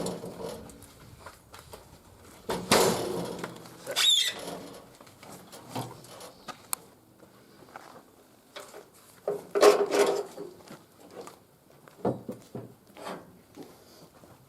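Irregular knocks and scrapes of wood being handled. The loudest come about three seconds and ten seconds in.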